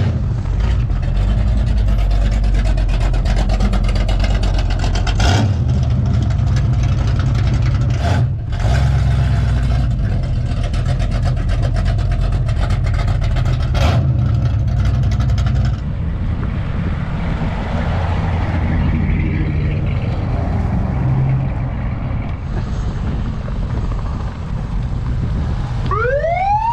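Classic and muscle car engines driving past one after another, a continuous loud low rumble. Near the end a siren starts up with a rising wail.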